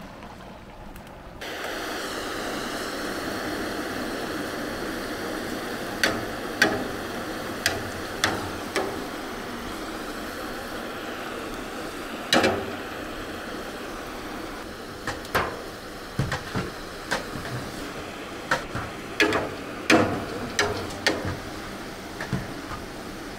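A steady rushing noise that starts suddenly about a second and a half in. From about six seconds in, irregular sharp knocks and clacks sound over it, some in quick pairs and most of them bunched in the second half.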